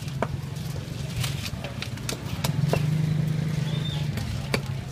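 A motor running steadily with a low hum that swells for a second or so mid-way, with scattered sharp clicks and knocks over it.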